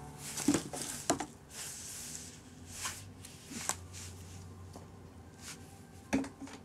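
Irregular rustling and scratchy knocks from a cat shifting in a corrugated-cardboard scratcher bed and batting at a feather wand toy, with a few sharper scrapes about half a second and a second in, again near three and a half seconds, and near the end.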